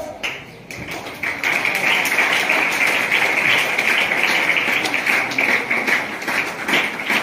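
An assembly audience applauding: many hands clapping together. It swells about a second in and then carries on steadily.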